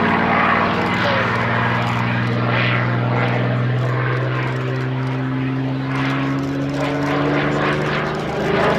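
Supermarine Spitfire Mk XVI's Packard-built Merlin V12 engine and propeller droning steadily as the fighter flies a display pass overhead, the pitch creeping up slightly through the middle.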